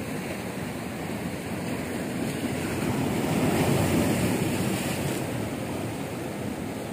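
Sea waves washing against a rocky shore as a steady rush, swelling louder about halfway through and then easing back.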